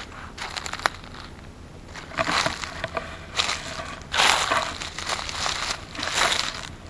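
Footsteps crunching over dry ground litter at a slow walking pace, about one step a second.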